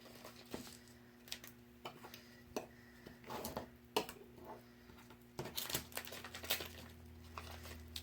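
Hands handling cardstock and small cut vinyl pieces: scattered light clicks and short rustles, the sharpest click about four seconds in and a denser run of rustling near the end.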